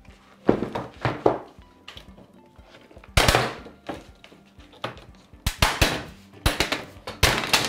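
Series of sharp plastic cracks and snaps as the iMac G4's white plastic display bezel is forced off the LCD panel. Its tabs, melted to the screen, are breaking. A few snaps come early, a longer crack about three seconds in, and a quick cluster of snaps near the end.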